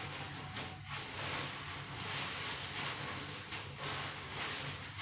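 Steady hiss from a gas stove burner heating oil in a steel kadhai.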